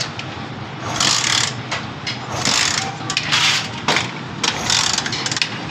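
Honda CD 70's single-cylinder four-stroke engine, kick-started and running with a loud mechanical chain clatter that comes in repeated bursts about every second over a steady low hum. The mechanic takes the noise for a worn cam (timing) chain.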